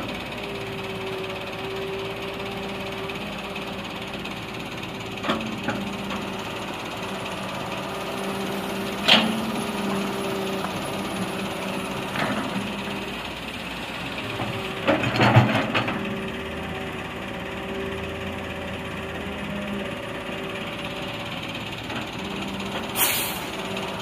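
John Deere 595D wheeled excavator running steadily while it digs and loads earth, the engine and hydraulics holding a steady drone. Sharp knocks from the bucket and boom come every few seconds, with a louder clatter about fifteen seconds in and a short hiss near the end.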